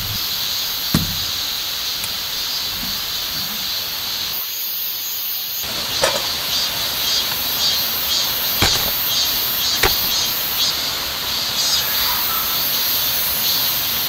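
Steady hiss of running water and rain around the campsite, with a few short, sharp knocks as camp gear is handled.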